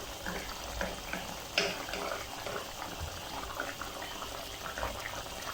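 Lamb karahi gravy bubbling and spluttering in oil as it reduces uncovered in the pan: a steady run of small irregular pops, with one sharper pop about one and a half seconds in.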